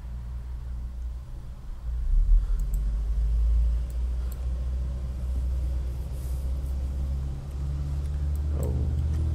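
A low rumble that gets louder about two seconds in and stays steady, with a few computer-mouse clicks over it.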